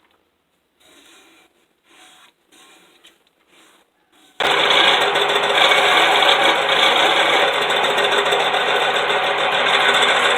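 A few faint knocks and clatters, then about four seconds in a wood lathe starts up abruptly and runs loudly and steadily.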